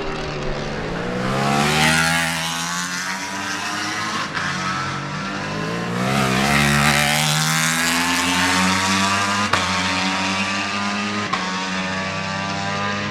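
Ducati Panigale V4 superbikes running at high revs on track, several V4 engines overlapping, their pitch rising and falling as the bikes pass and shift. The sound is loudest about two seconds in and again around six to seven seconds in.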